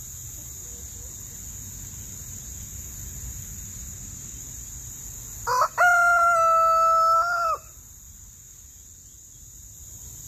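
A rooster crowing once, about halfway through: a short rising lead-in, then a long held note of about two seconds that falls away at the end.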